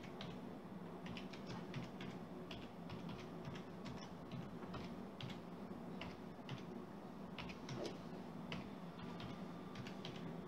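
Computer keyboard keys being typed one at a time, faint irregular clicks with short pauses between them, as a short command is entered.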